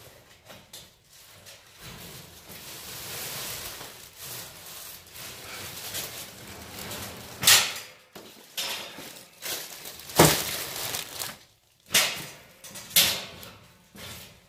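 Bags and boxes being hauled about: a steady rustling, then several sharp knocks and thuds as things are dropped or set down, the loudest two about seven and ten seconds in.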